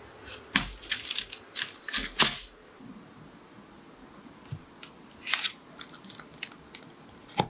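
Paper crinkling and crackling sharply for the first two seconds or so. Then a chef's knife cuts down through a chilled cheesecake, with faint crunches as the blade goes through the biscuit crust and a sharp tap on the board just before the end.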